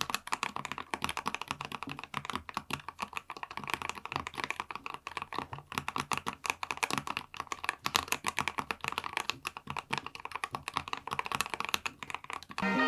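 Continuous fast typing on a Monsgeek M3W mechanical keyboard with linear Ice cream pink switches, a PC plate and full foam, force-break and tape modded: a quick, even stream of key clacks. Music comes in right at the end.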